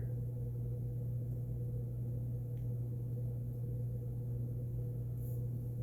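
A steady low hum with a fainter, higher steady tone above it, unchanging throughout, and a faint tick about two and a half seconds in.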